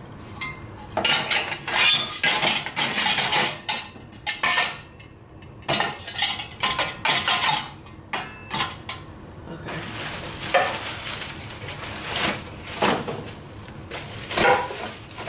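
Gotham Steel square glass pot lids with steel rims clinking and clattering against a metal wire lid-organizer rack as they are slotted in, in quick bursts of knocks. After about ten seconds it turns to steadier rustling of plastic wrap and cardboard as a wrapped pot is handled in its box.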